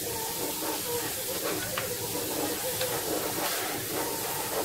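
Pressure washer jet spraying water onto a car's body panels and wheel: a steady hiss.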